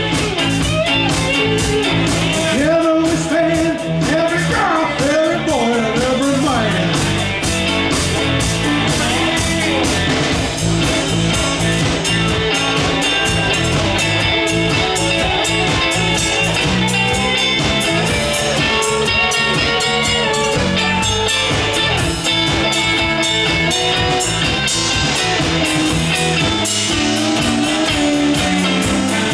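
Live rock band of two electric guitars, electric bass and drums playing a song with a steady beat.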